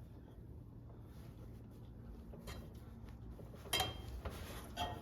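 A few light metallic clinks and taps from hand tools and small metal heater parts being handled, the loudest with a short ring a little before the end, over a steady low hum.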